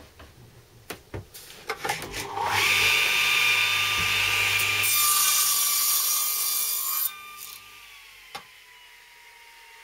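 Electric mitre saw switched on and cutting across the end of a planed 5x1 timber board for about four and a half seconds, then let go and spinning down with a slowly falling whine. A few knocks from the board being set against the fence come before the start, and there is one more knock as the blade slows.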